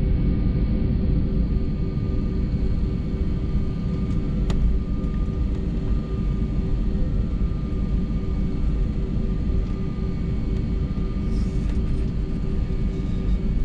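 Commercial airliner's jet engines running during the takeoff roll: a steady deep rumble with several steady tones above it. One short click about four and a half seconds in.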